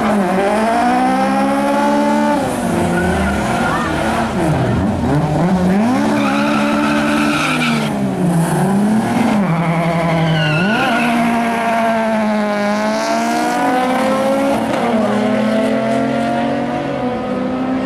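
Car engine revved hard on the throttle, its pitch rising and falling again and again, with tyres squealing and skidding on the track.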